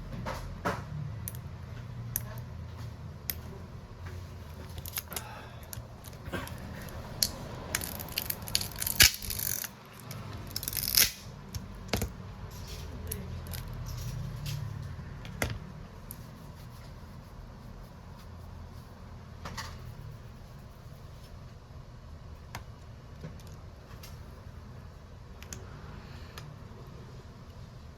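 Small tools and phone parts being handled during a smartphone screen repair: scattered light clicks and taps, with two brief rasping scrapes about eight and eleven seconds in, over a steady low hum.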